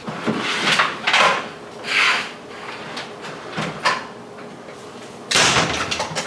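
Kitchen cupboard doors and drawers being opened and shut while things are handled: a string of separate knocks and rubbing sounds, the loudest a little after five seconds in.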